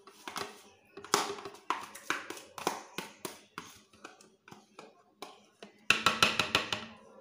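Repeated sharp taps and knocks on a plastic blender jar as homemade yogurt is scooped into it, about one or two a second, with a quick cluster of rattling knocks about six seconds in.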